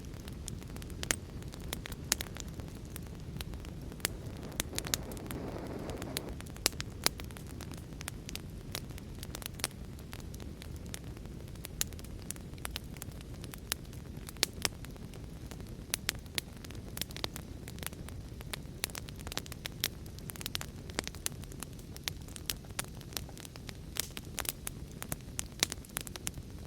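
Wood fire crackling with frequent, irregular sharp pops over a steady low rush of heavy rain.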